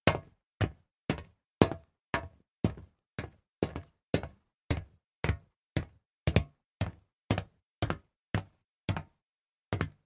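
Footsteps on solid metal at a steady walking pace of about two steps a second, each step a sharp knock with a short ring. The steps pause for about a second near the end, then go on.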